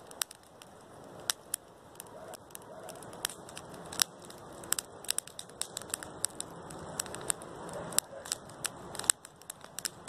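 Wood campfire of stacked sticks crackling: a dense run of irregular sharp pops over a soft rush of flame, with a few louder snaps among them.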